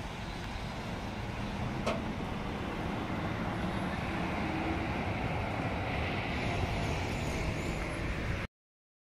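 SGP-Lohner E1 tram moving past at close range: a steady rumble of its wheels and running gear on the rails, growing a little louder, with a single sharp click about two seconds in. The sound cuts off suddenly near the end.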